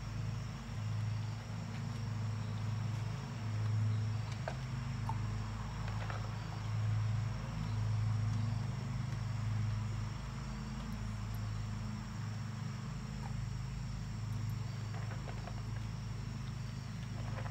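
A steady low hum that swells and fades, under a faint high, continuous insect chirring, with a few light clicks.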